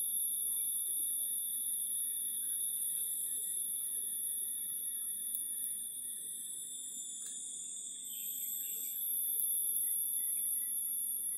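A shrill, very high-pitched steady drone with a second, lower steady tone under it. The high drone sinks in pitch about six seconds in and climbs back about two seconds later.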